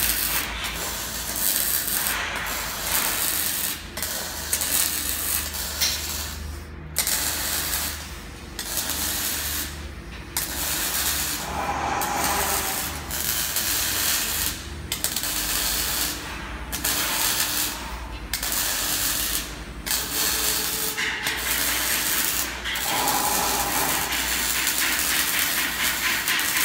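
Arc welding of steel fence tubing: a crackling, hissing welding arc laid down in short welds, stopping and starting every second or two as pickets are joined to the rails, with two welders working at once.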